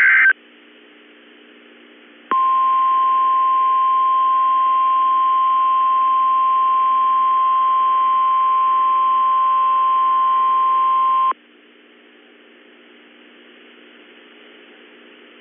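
NOAA Weather Radio warning alarm tone: a single steady 1050 Hz tone that sounds for about nine seconds, starting a couple of seconds in and cutting off sharply. It signals the activation of tone-alert weather radios, here for the weekly test. A brief high digital burst ends in the first fraction of a second, and a faint low hum fills the gaps.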